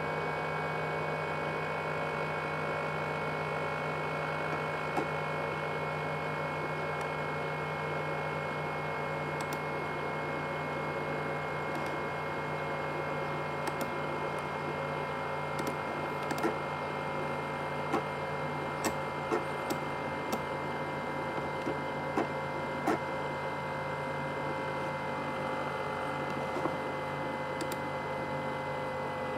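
Asus X543UA laptop's CPU cooling fan running hard with a steady whine of several tones, its pitch sinking slowly. Scattered sharp clicks sound through the middle part.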